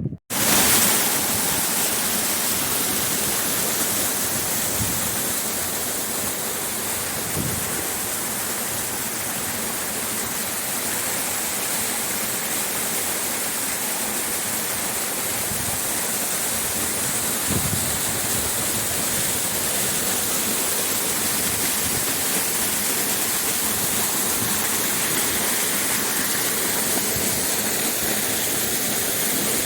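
Steady rush of running water, an even, unbroken roar.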